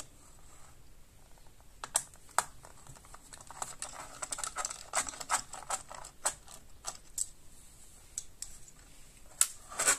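Small Phillips screwdriver backing out the single screw on a laptop hard drive caddy: a run of light, irregular clicks and ticks of the driver tip in the screw head and of the small metal and plastic parts being handled.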